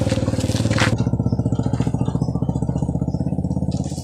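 Small engine running steadily with a fast, even beat. A rushing hiss sits over it for about the first second, then cuts off.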